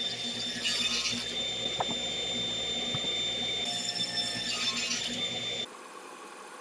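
A power tool motor running steadily with a constant high whine over a low hum. About five and a half seconds in it cuts off, leaving a quieter hum.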